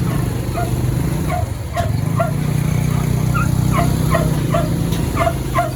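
A dog barking in short, repeated yips, about two a second, over a steady low vehicle hum.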